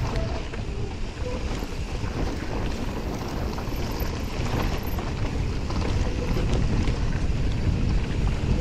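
Mountain bikes descending a loose, dusty trail: wind rushing over the action-camera microphones over a steady rumble of tyres on dirt, with many small rattling clicks from the bikes.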